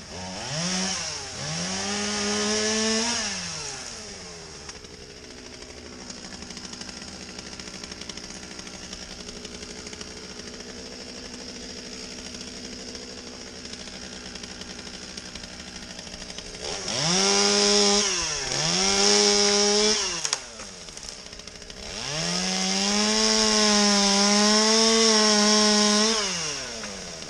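Two-stroke chainsaw pruning limbs in a tree, revving up in bursts: twice quickly at the start, twice more past halfway, and one long held rev near the end, dropping back to idle in between.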